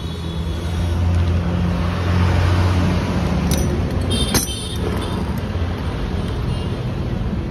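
A motor vehicle's engine running steadily, louder for a couple of seconds and then easing back, with one sharp click about four seconds in.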